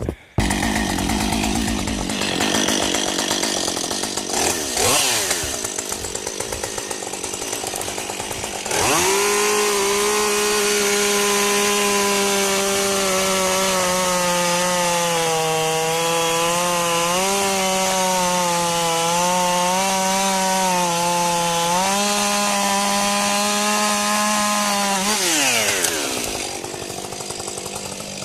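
Chainsaw running: uneven at first, then revving up about a third of the way in and held at high revs, with small dips in pitch as it works through wood. It drops back down near the end and revs up again right at the close.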